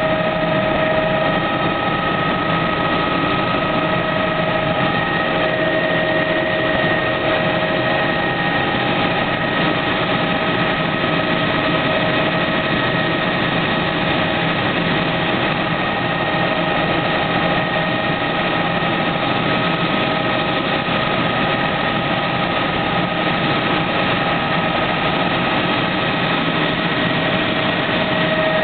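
Helicopter in flight heard from inside the cabin: a constant rushing engine and rotor noise with a few steady whining tones running through it.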